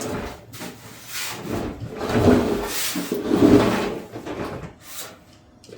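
Scraping, rubbing and knocking of hands on a heater cabinet's caster as its wheel lock is worked off.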